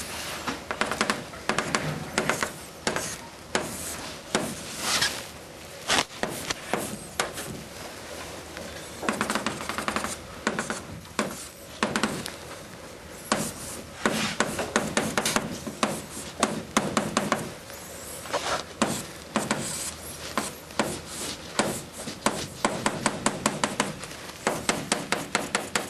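Coloured chalk on a blackboard: quick runs of scratching, tapping strokes as boxes are hatched in, with short pauses between the runs.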